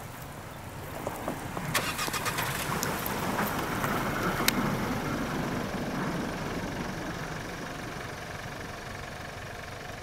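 SUV driving through deep snow: the engine runs under load and the tyres crunch through the snow, with sharp crackles in the first few seconds. The sound swells to a peak about halfway through, then slowly fades as the car moves away.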